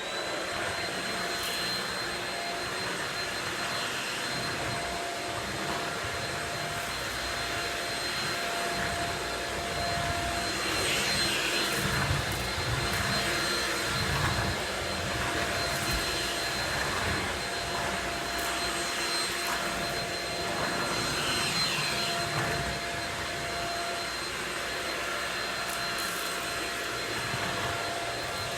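Shark Rocket stick vacuum running steadily with a thin high whine over its motor and suction noise, swelling in loudness now and then.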